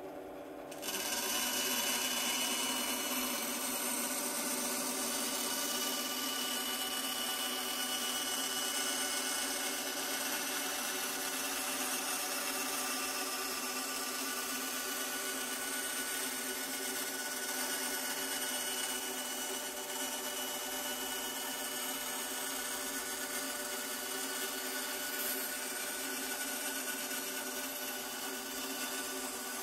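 Band saw running, its blade cutting through a thin wooden panel: a steady hiss of sawing starts about a second in over the motor's steady hum, and carries on unbroken.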